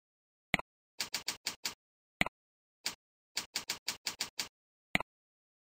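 Computer keyboard being typed on: about fifteen short key clicks in two quick runs with a few single keystrokes between, and one last click near the end.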